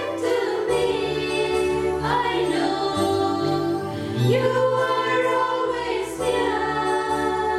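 Voices singing a hymn with instrumental accompaniment and a bass line that changes note every second or two.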